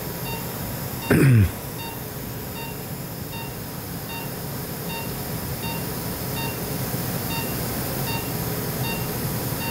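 Operating-room patient monitor beeping in a steady rhythm of about three beeps every two seconds, the pulse tone following the patient's heartbeat, over a steady equipment hum. About a second in, a brief voice sound falls in pitch.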